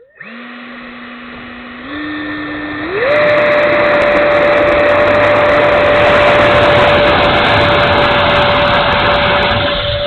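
The 70 mm electric ducted fan of an E-flite F-16 RC jet spooling up from rest, its whine stepping up in pitch twice in the first three seconds as the throttle is opened, then running at a steady, loud high whine through the takeoff roll, with a crackle of wheels on the asphalt until the jet lifts off near the end.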